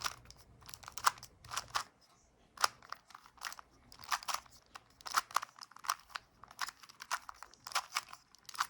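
A 2x2 Rubik's cube being scrambled by hand: its plastic layers turning and clicking into place in quick, irregular runs of sharp clicks.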